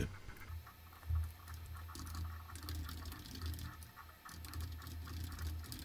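Low background hum with faint, scattered clicks between narrated lines; no speech.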